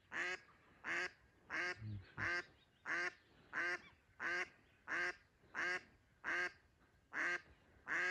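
A live decoy mallard hen quacks in a long, even series, about one and a half calls a second. She is calling to draw drakes in. There is a soft low thump about two seconds in.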